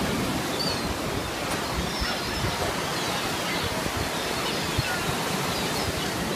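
Surf breaking and washing up the beach in a steady rush, with a few faint, short gull cries above it.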